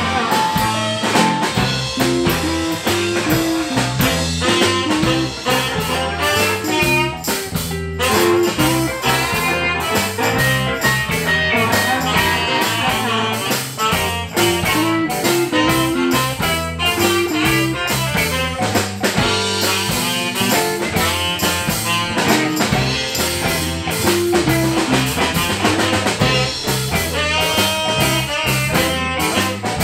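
Live electric blues band playing a shuffle, with blues harmonica over electric guitars, bass guitar and a drum kit keeping a steady beat.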